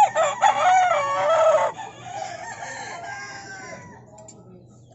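Rooster crowing: a loud, long drawn-out crow that ends about a second and a half in, followed by fainter crowing that dies away about four seconds in.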